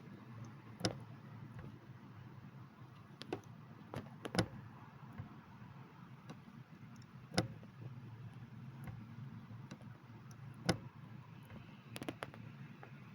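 Clutch pedal of a manual Toyota Yaris clacking as it is pressed and let up: a sharp click every few seconds, some in quick pairs. The clack comes from a joint in the pedal linkage shifting under the pedal stroke.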